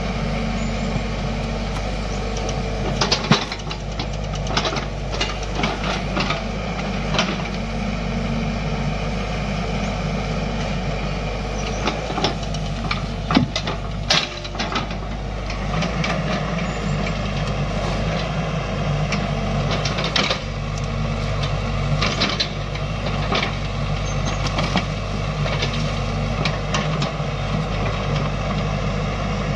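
XCMG XE55DA mini excavator's diesel engine running steadily while working, with scattered sharp knocks and clatter as the bucket digs out and drags a tree stump with its roots.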